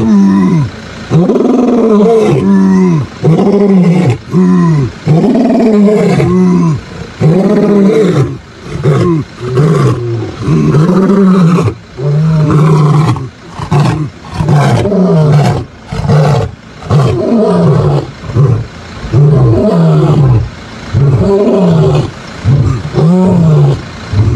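Male African lions roaring: a long bout of loud, deep grunting calls, about one a second, each rising and then falling in pitch.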